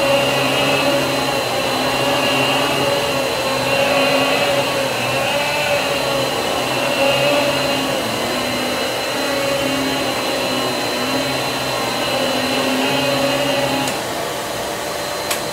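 Riccar Pizzazz canister vacuum running at a steady high whine while its electric power head is pushed and pulled over carpet, a lower hum swelling and dropping with each stroke. The stroke sound stops near the end and a sharp click follows.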